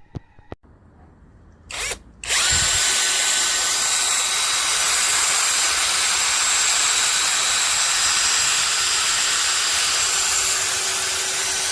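Cordless 21V drill driver, given a short blip of the trigger and then run at a steady speed for about ten seconds, with a constant whine over the motor's rush.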